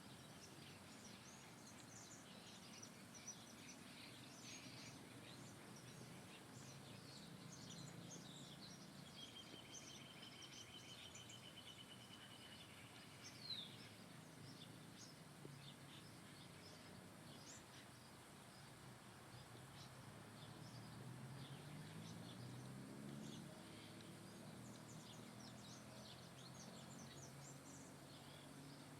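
Faint birdsong: many short, high chirps from small birds, with a steady trill about a third of the way in and a quick falling note just after. A faint low hum runs underneath and rises in pitch about three quarters of the way through.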